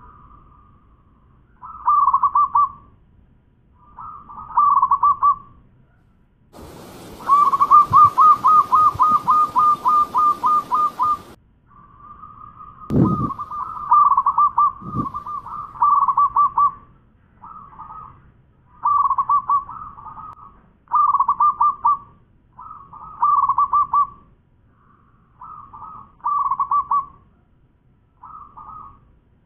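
Zebra dove (perkutut) cooing its song over and over: short phrases of quick, pulsed notes with brief gaps, one drawn-out phrase near the middle. A burst of steady hiss covers that long phrase, and a low knock comes just after it.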